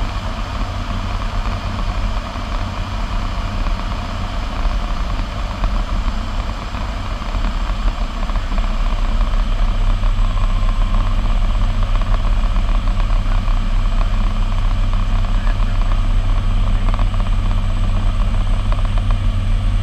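Cessna 208B Grand Caravan's turboprop engine and propeller heard inside the cockpit on approach to landing: a steady low drone with a thin high whine above it, growing a little louder about eight seconds in.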